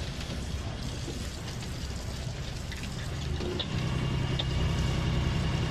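A sailing yacht's engine running steadily under way, a low hum that grows louder and stronger about two-thirds of the way through.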